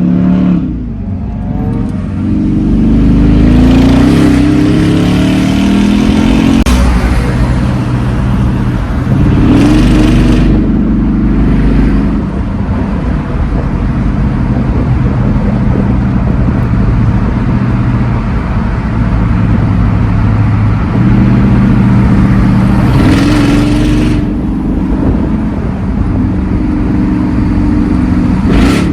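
Mercedes-Benz E55 AMG (W211) supercharged M113K V8 driving, accelerating so the engine note rises in pitch several times, with steadier cruising between the pulls.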